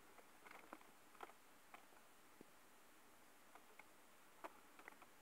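Near silence: faint room tone with a few scattered, faint clicks and ticks.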